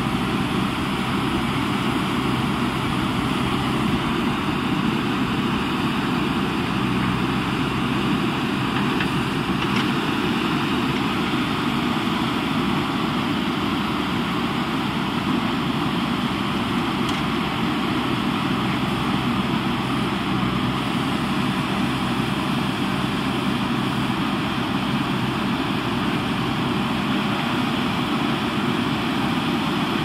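JCB backhoe loader's diesel engine running steadily as the rear backhoe arm digs.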